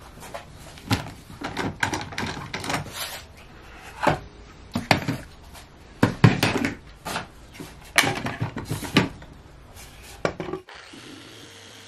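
Bar clamps being loosened and pulled off a glued-up walnut tray: an irregular string of sharp clacks and knocks as the metal and plastic clamp parts hit each other, the wood and the bench. About a second before the end this cuts off and a steady rushing noise starts abruptly.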